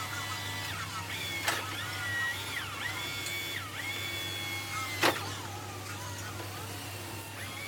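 A high, whistle-like tune of held notes that glide up and down between pitches, about one note a second. Two sharp clicks sound, one about a second and a half in and one about five seconds in, over a low steady hum.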